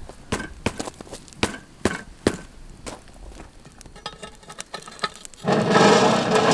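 Wood fire crackling with sharp pops. About five and a half seconds in, a loud scrape of metal on metal lasting about a second and a half, as the coal-covered cast-iron Dutch oven lid is shifted with a lid lifter.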